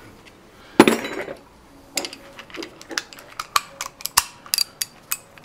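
Metal hand tools being handled: a loud clatter about a second in, then a run of sharp, irregular clinks.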